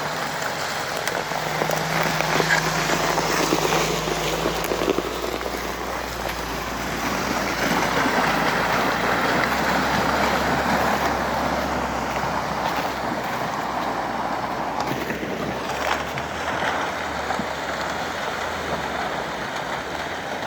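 Vehicle driving along a rough forest track: the engine running low under a steady rush of tyre and ground noise.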